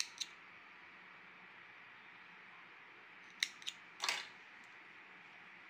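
Faint room tone with a few small, sharp clicks of metal being handled: two right at the start and three more about three and a half to four seconds in, from a metal safety pin being fixed to the back of a small crocheted badge.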